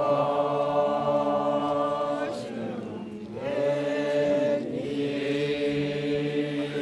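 Makury Naga men's choir singing in three-part harmony: long held chords, in two phrases with a short break just before halfway.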